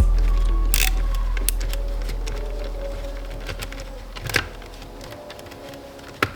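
A low buzzing hum that fades away over about five seconds, with a few sharp clicks of hand tools scattered through it.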